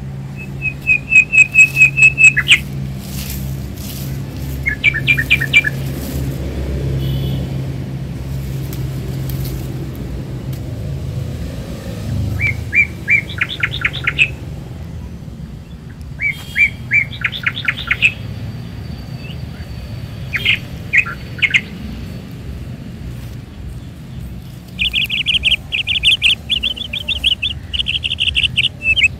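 Small birds chirping in repeated bouts of quick, high notes, with a low steady hum underneath for the first dozen seconds.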